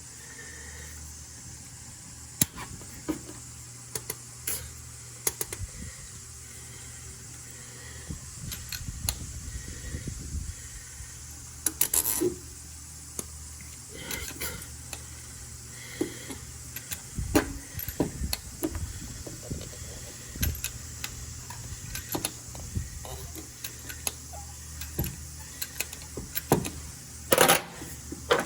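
Scattered metallic clicks, clinks and knocks of hand tools and parts being handled during a spark plug change, over a steady low hum.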